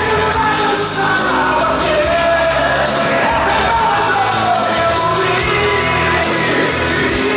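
Live pop-rock band playing with a steady drum beat while a voice sings a drawn-out melody over it, amplified through a large venue's sound system.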